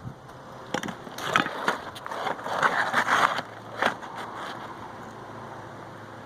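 Asphalt roofing shingles scraping and rustling as they are handled, with a few sharp knocks, during a hand-nailed shingle repair. After about four seconds only a steady low hum remains.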